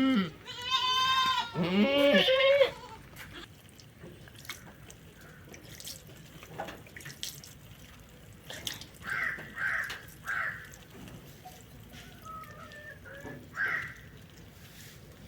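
A goat bleating loudly several times with a quavering voice, followed by a few short squirts of milk as the goat is hand-milked by squeezing the teat, the spurts coming in a quick cluster and once more near the end.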